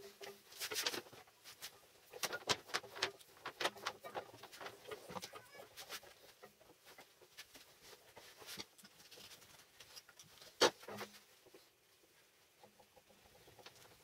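Irregular clicks, scrapes and squeaks of silicone-insulated copper cable being pulled through and wound around a microwave oven transformer's core as its new secondary winding, with one sharp knock about ten and a half seconds in.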